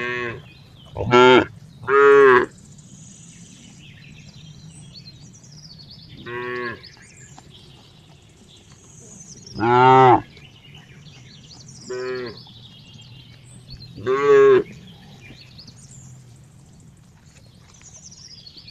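A cow mooing in short calls, about seven of them, each under a second long and spaced irregularly. The loudest come about a second in, at two seconds, near ten seconds and near fourteen seconds.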